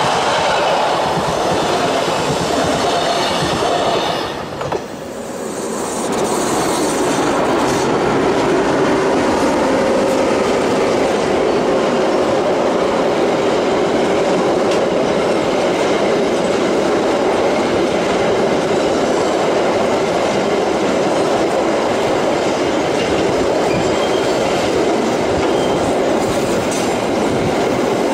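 Narrow-gauge Matterhorn Gotthard Bahn trains passing close by: first the Glacier Express, then after a brief break about five seconds in, a long rake of empty car-shuttle wagons rolling past steadily on the rails.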